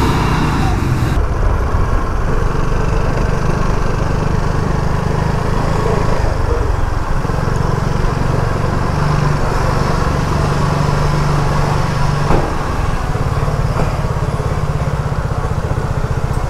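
Vespa scooter engine running as the scooter rides slowly, its note rising and falling with the throttle and easing down after a single sharp click about twelve seconds in.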